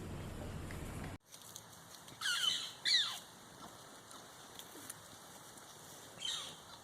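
Flies buzzing around the microphone for about a second, then, after a cut, a bird gives three short descending calls, two close together and one near the end.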